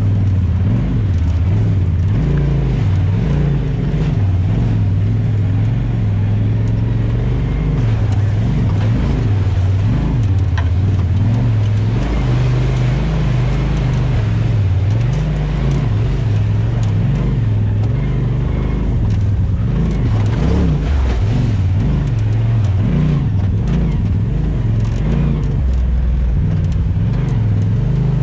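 Off-road vehicle's engine running on a trail ride, its note rising and falling over and over as the throttle is worked.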